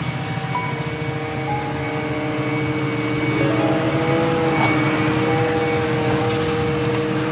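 Tractor and Krone Swadro TC 1570 four-rotor rake running in the field: a steady machine drone with a held whine, growing a little louder about halfway through.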